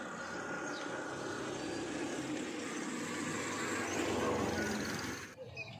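Road traffic: a motor vehicle passing, a steady noise that grows louder and then cuts off suddenly about five seconds in.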